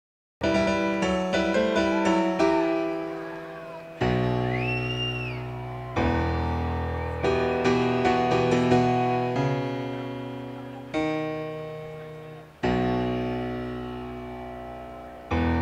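Solo piano played live on a stage keyboard: quick runs of notes in the first couple of seconds, then big chords struck about every one to two seconds, each left to ring and fade before the next.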